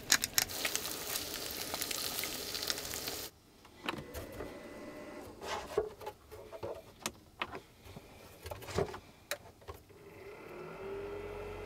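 Cooking sounds as eggs are made: a steady hiss with quick utensil clicks that stops abruptly about three seconds in. Then come scattered light taps and clinks, and a short steady hum near the end.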